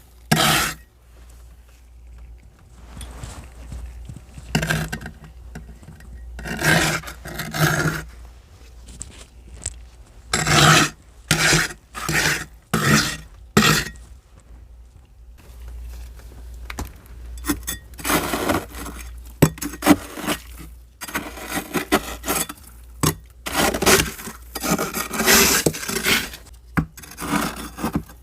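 Frost and ice being scraped off the inside walls of a deep freezer, in repeated uneven scraping strokes with short pauses between them, over a steady low hum.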